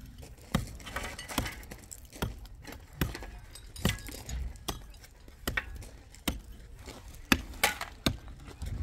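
Hand hammer striking a hard surface over and over, about one sharp clinking blow a second, unevenly spaced.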